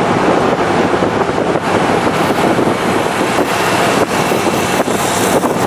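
Corvette Z06 under way: a steady rush of wind and road noise on a camcorder's built-in microphone, with the V8 engine running underneath.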